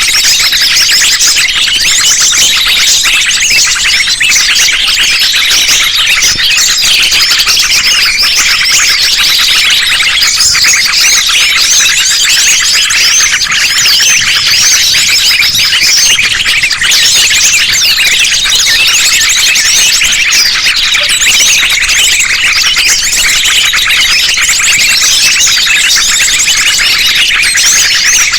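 A dense layered chorus of small songbird calls, sunbirds among them: many rapid, high chirps and trills overlapping without a break, mixed as a lure call to draw small wild birds in.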